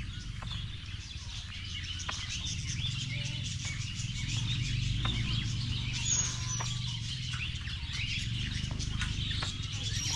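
Many birds chirping in quick, overlapping calls over the steady low rush of flowing water.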